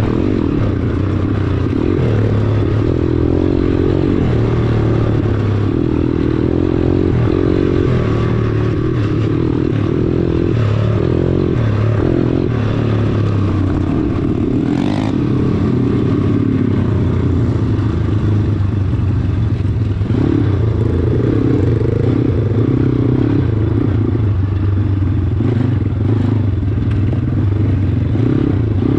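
Four-stroke pit bike engines running close by as the bikes ride a dirt track, the revs rising and falling with the throttle.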